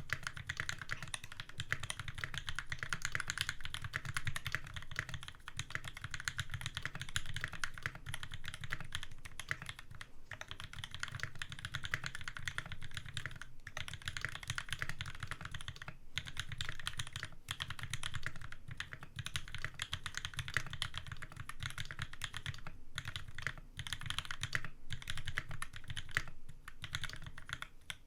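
Continuous fast typing on a custom mechanical keyboard with lubed NovelKeys Cream linear switches on a 1.5mm brass plate, O-ring gasket mounted, with a few brief pauses.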